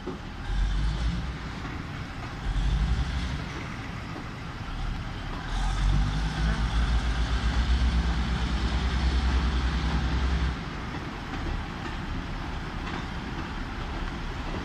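Diesel railcar train pulling out, its underfloor engines throbbing in surges as the throttle opens: two short bursts, then a long loud stretch of several seconds that drops back to a lower rumble near the end.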